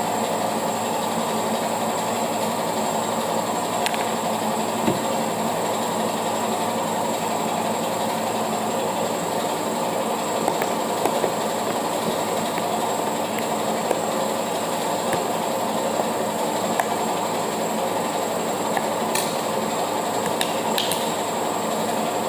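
Paint shaker machine running with a steady rattling rumble while it mixes a can of tinted paint. A few light clicks come near the end.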